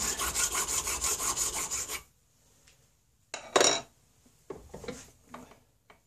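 Hand file rasping quickly back and forth on a brass ramrod pipe held in a bench vise, about six strokes a second, stopping about two seconds in. A loud knock follows, then a few lighter knocks and scrapes as the vise and workpiece are handled.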